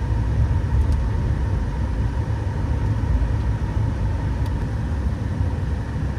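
Steady engine and road rumble heard inside the cab of a Subaru Baja on the move.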